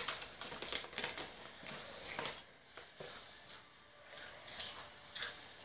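Faint, scattered crackles and clicks of hot fries being crunched and their snack bag crinkled.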